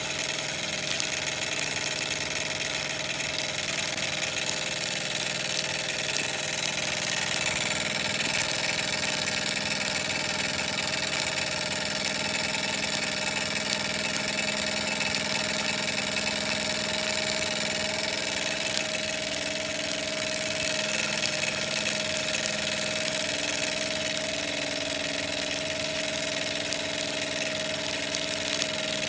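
Microcosm M89 miniature steam engine running steadily on steam from its small brass boiler, a continuous, even mechanical running sound with no change in speed.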